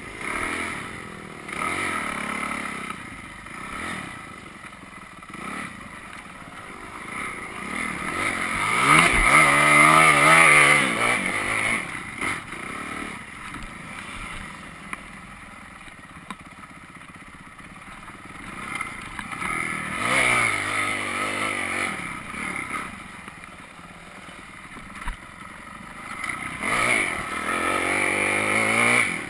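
Dirt bike's single-cylinder engine, recorded from on the bike, revving up and down as it rides a trail. The revs climb to their loudest about a third of the way in, with further bursts of throttle about two-thirds in and near the end, and lighter running in between.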